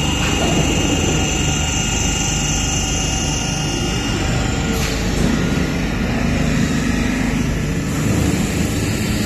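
Automatic parts-washing machine running, with water jets spraying steadily against the inside of its cabinet as it cleans chainsaw crankcases.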